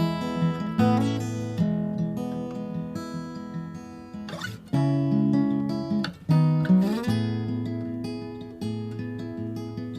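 Acoustic guitar playing strummed chords that ring on between strikes, with a note sliding up about seven seconds in.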